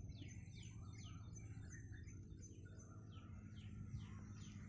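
A bird calling faintly: a quick run of short, high notes that each slide downward, about four a second, a pause, then a second run near the end.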